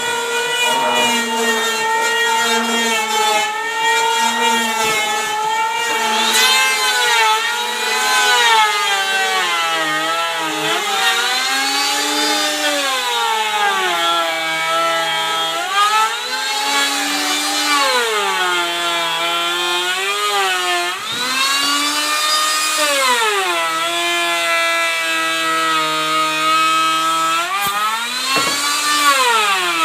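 Electric woodworking machine's motor running while cutting wood, its pitch sinking as it takes the load and climbing back as the cut eases, over and over.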